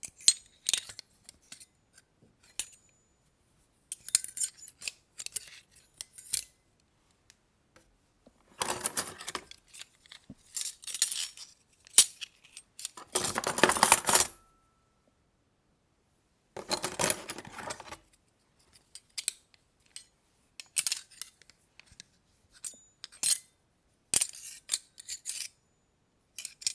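Metal silverware clinking and clattering: scattered single clinks, broken by a few dense, rattling bursts in the middle, the longest and loudest about halfway through.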